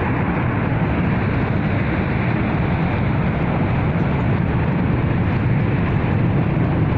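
A steady, loud rumbling roar that holds the same level throughout, the kind of low unbroken noise put forward as a strange sound coming from a mountain.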